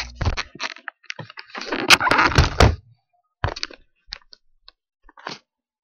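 Computer keyboard typing and clicks, with a dense burst of knocks and rubbing about two seconds in, followed by a few sparse clicks.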